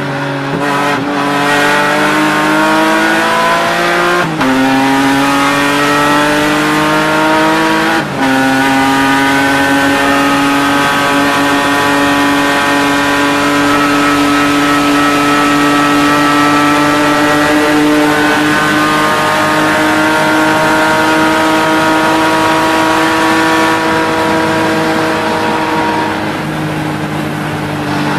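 BMW E36 race car's engine heard from inside the cockpit at full throttle, climbing through the revs with two quick upshifts about four and eight seconds in. It then holds a long high-rev pull in the higher gear and eases off gradually near the end.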